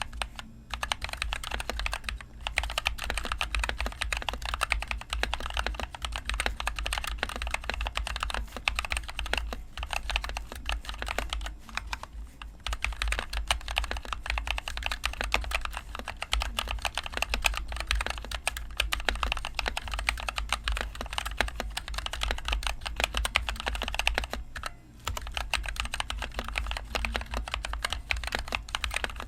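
Continuous fast typing on a NovelKeys NK65 Entry Edition mechanical keyboard with NovelKeys Cream linear switches and HyperX Pudding keycaps, a dense stream of keystroke clacks with a few brief pauses. A low steady hum runs underneath.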